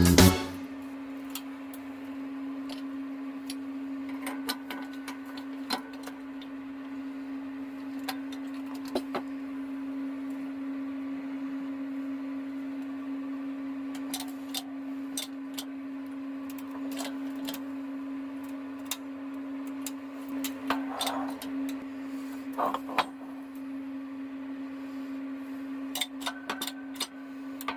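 A steady, even hum, like a machine running, with scattered small clicks and taps over it.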